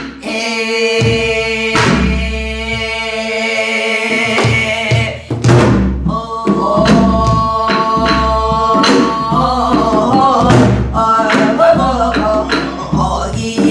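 Two women singing a Korean Namdo folk song in held, ornamented phrases, accompanied by janggu hourglass drum and buk barrel drum strokes.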